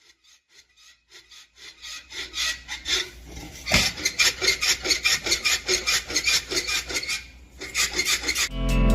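Rhythmic rasping rattle from a failing dual-mass flywheel on an Audi A6, pulsing several times a second. It fades in, grows loud about four seconds in, and stops near the end.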